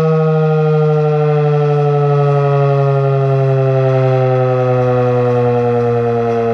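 Federal Signal 2001-DC 'Roundback' outdoor warning siren sounding one loud, sustained tone that slowly falls in pitch.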